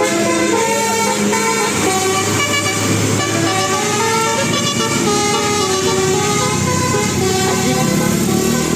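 Bus 'telolet basuri' musical horn playing a tune of held notes that step from one pitch to the next, often several sounding together. A low steady hum joins about two seconds in.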